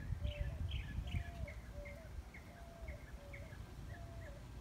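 Songbirds calling: a string of short, falling high chirps about twice a second over a repeated lower whistled note, both growing a little fainter. A low rumble sits beneath them.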